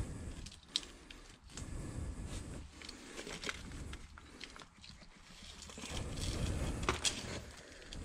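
Concrete slab and wooden plank being shifted by gloved hands over loose brick rubble: scraping and rubbing with sharp knocks and clicks, one about a second in and another near the end.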